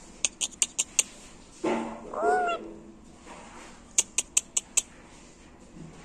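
A female Alexandrine parakeet gives one short call that arches up and down in pitch, about two seconds in. It is framed by two quick runs of five sharp, high clicks, one in the first second and one near the end.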